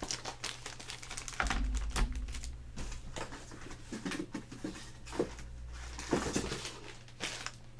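Hard plastic graded-comic slabs and their packaging being handled: a run of clicks and taps, with a low rumble of handling noise through the middle.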